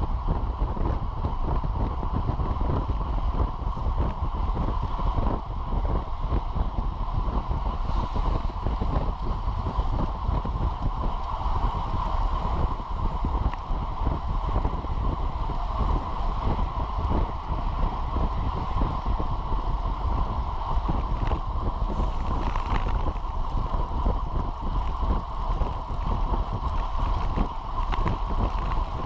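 Steady wind rush buffeting the microphone of a bicycle-mounted camera, with road noise from the tyres, as a road bike rolls at about 25 to 29 mph.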